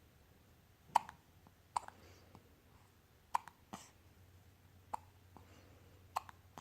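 Hiccuping: about six short, sharp hiccups at uneven intervals, the one about a second in the loudest.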